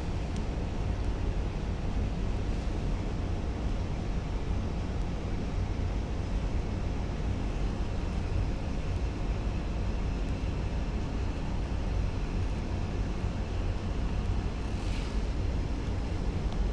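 Central air conditioning blowing steadily from a vent: an even rush of air with a low rumble and a faint steady hum.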